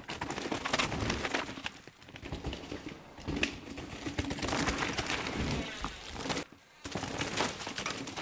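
Santa Cruz V10 downhill mountain bike ridden fast over a rough dirt trail: tyres rolling and scrabbling on dirt, with rapid rattles and knocks from the chain and suspension over the bumps. The sound briefly drops out about six and a half seconds in.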